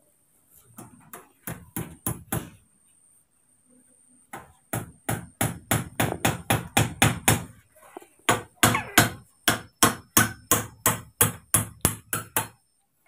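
Hammer driving nails into wood: a few blows, a short pause, then two long runs of steady, even blows at about four a second.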